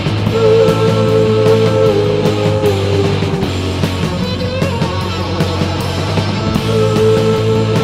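Rock band playing live on electric guitar, bass guitar and drum kit, in an instrumental stretch without vocals: held, slightly bending guitar notes over a steady bass line and regular drum and cymbal strokes.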